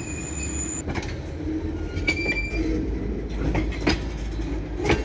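Freight train tank cars rolling past at close range: a steady low rumble with several sharp wheel clanks over the rail joints, and short wheel squeals near the start and about two seconds in.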